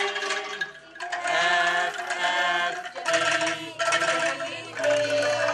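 Angklung ensemble playing a melody: tuned bamboo tubes shaken so each note sounds as a trembling rattle, with a new pitch every half second or so and a short break about a second in.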